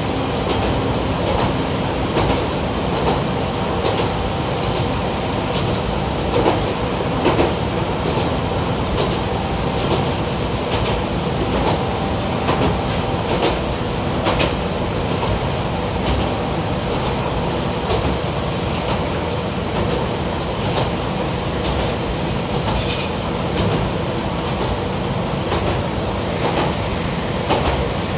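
Running sound inside a Yamagata Railway YR-880 light diesel railcar at steady speed: a continuous drone of engine and rolling wheels, with frequent clicks as the wheels pass over rail joints.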